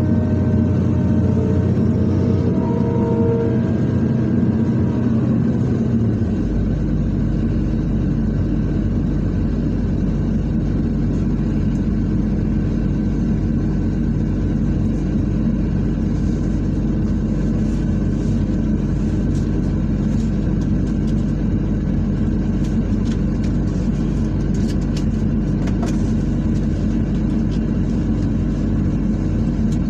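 Excavator's diesel engine running steadily under load, heard from the operator's cab; about six seconds in its note changes and then holds steady, with a few faint knocks later on.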